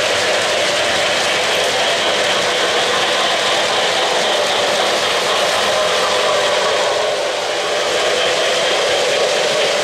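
O-gauge model freight cars rolling along three-rail track: a steady rolling noise of metal wheels on the rails.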